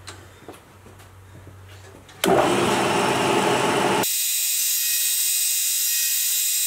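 Small high-speed spindle motor spinning a single-point gear cutter. It is quiet for about two seconds, then starts up loud while cutting a tooth into a plastic gear blank. Around four seconds in the sound changes abruptly to a steady high-pitched whine.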